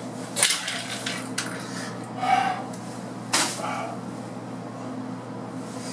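Knocks and clunks of things being handled at a bathroom sink and mirrored medicine cabinet: a sharp knock about half a second in, a short sound with a squeak-like tone around two seconds, and another sharp knock a little past three seconds. A steady low hum runs underneath.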